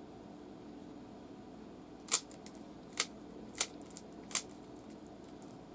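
Rubik's Cube being twisted while scrambled: four sharp plastic clicks at uneven gaps of about a second, over a faint steady hum.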